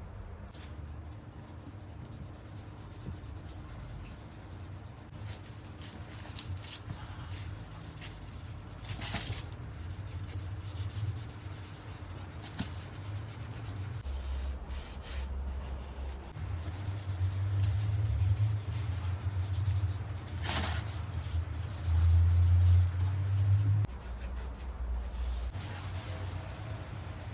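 Wood stain being rubbed onto the edge of an old wooden dresser, an uneven rubbing and scuffing that grows louder in the second half. Two sharp clicks, about nine seconds in and again near twenty.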